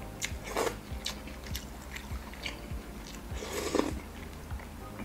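A person chewing and slurping rice vermicelli noodles in laksa broth, with small mouth clicks and two louder slurps, about half a second and three and a half seconds in.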